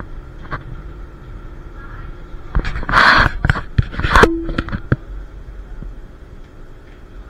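Historic tram running with a steady low rumble; about two and a half seconds in comes a burst of loud clattering and knocking lasting some two seconds, with a brief tone near its end.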